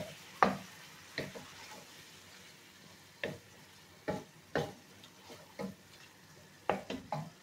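A spatula scraping and knocking against a stainless steel pan while stirring chicken and tomato masala, in about a dozen irregular strokes, over a faint frying sizzle.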